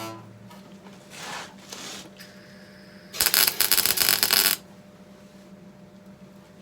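Welder laying a short tack weld: a loud, dense crackle lasting about a second and a half, starting about three seconds in, over a steady low hum.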